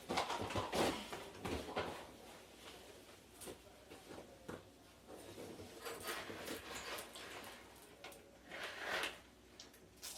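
Fabric rustling and scraping in irregular bursts as an animatronic's shirt and apron are handled, louder about a second in and again near the end.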